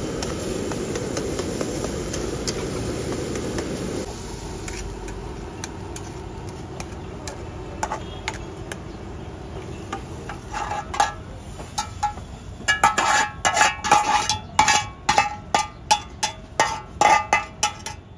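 Slotted metal spatula knocking and scraping against an iron kadai, at first over a steady rushing noise from the gas burner. From about ten seconds in come quick, ringing metallic clangs, several a second, as the egg curry is scraped out of the pan into a bowl.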